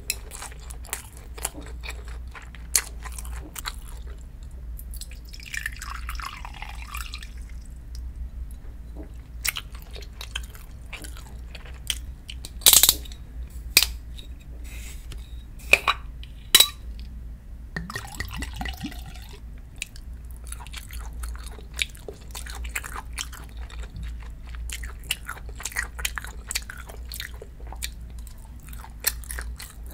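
Close-miked eating: chewing and small clicks of chopsticks and food throughout, with a few loud, sharp glass clinks near the middle as a glass soju bottle is handled and poured.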